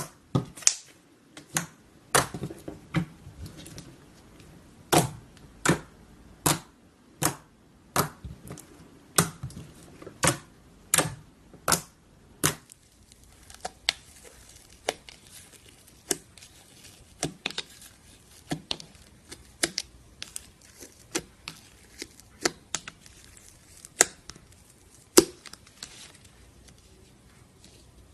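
Slime being worked by hand, making a series of sharp clicks and pops about one every half second to second. They are loud and regular at first, then fainter and more scattered in the second half.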